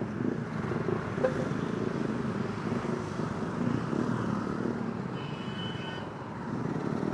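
Motorcycle engines running in a group at a roadside stop, with road traffic. A faint high tone lasts about a second, some five seconds in.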